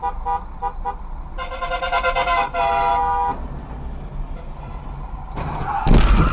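A car horn honks a few short toots, then gives two long blasts. Near the end comes a loud crash, with debris raining down onto the car's windshield.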